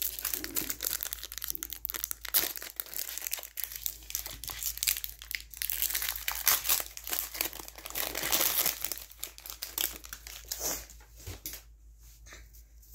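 Foil wrapper of a Pokémon Lost Origin booster pack crinkling and crackling as it is handled between the fingers. The crinkling stops near the end.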